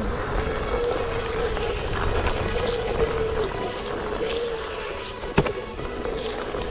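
Hub motor of a single-wheel electric board whining at a steady pitch that wavers slightly with speed, over the rough rolling noise of its tyre on a hail-dusted dirt trail. A single sharp click about five seconds in.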